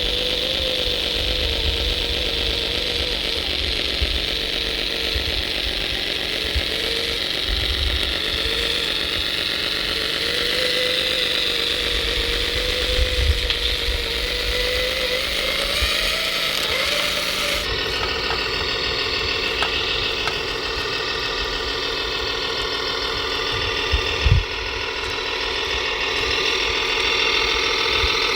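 Radio-controlled model trucks running, a steady motor whine that wavers in pitch, over a low rumble and light rattles. The sound changes abruptly about two-thirds of the way through, and there is a short knock a few seconds before the end.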